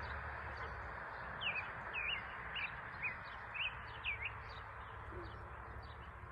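A bird chirping repeatedly: short falling chirps at about two a second, strongest in the middle and fainter toward the end, over a steady background hiss.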